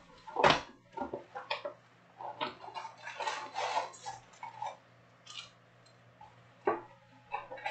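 Foil Panini Prizm trading-card packs crinkling and tapping as they are handled and stacked, with a few sharp knocks of packs or boxes set down on the table.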